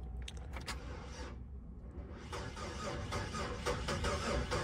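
A few faint clicks, then from about two seconds in the starter cranks the Chevrolet Impala's engine over, on a booster pack. The crank is uneven, typical of an engine that has sat unused for a long time.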